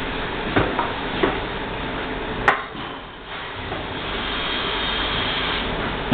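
Carpentry hand tools knocking on wood: a few sharp knocks, the loudest a crisp one about halfway through, over a steady background noise.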